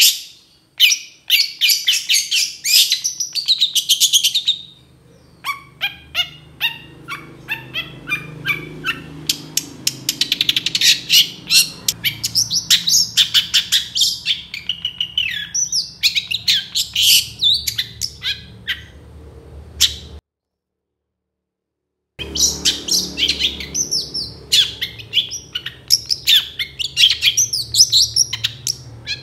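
Long-tailed shrike singing a fast stream of short, sharp chattering notes. It stops for about two seconds around two-thirds of the way through, then carries on.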